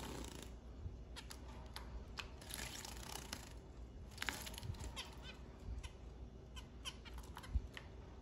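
Zebra finches giving short chirping calls, with bursts of splashing and wing-fluttering as a finch bathes in a shallow water dish, around three and four seconds in.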